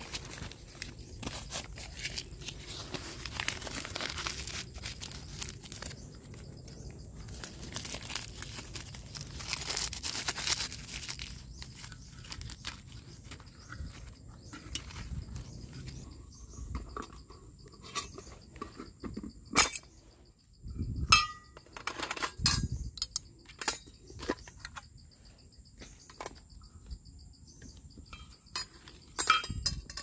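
Crinkling and rustling of dry leaves and twigs being handled for most of the first half. Then a steady high insect drone, with scattered sharp knocks and clinks as metal camping cookware is handled, loudest about two thirds of the way in and again near the end.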